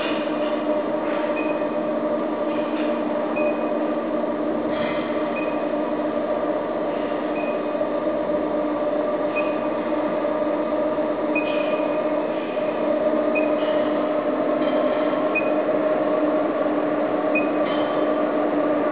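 Large ceiling fan in a cow barn running with a steady droning hum. A short high chirp recurs every second or two, with a few faint clicks.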